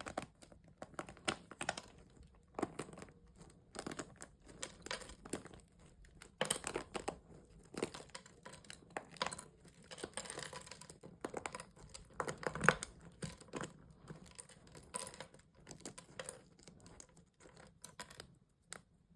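Hardened wax coating on a squishy toy cracking and crinkling as it is squeezed by hand, in a long run of small, irregular crackles and snaps.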